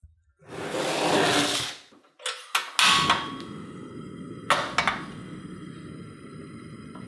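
A loud rush of noise lasting about a second and a half, then knocks as a pan of potatoes in water is set down on a portable gas stove's grate. Two sharp clicks from the stove's igniter follow, and the gas burner lights and burns with a steady low rush.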